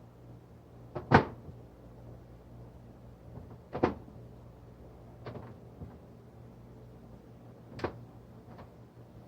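A few sharp knocks and clicks of parts and tools being handled and set down, with the loudest about a second in and the others near four, five and eight seconds, over a steady low hum.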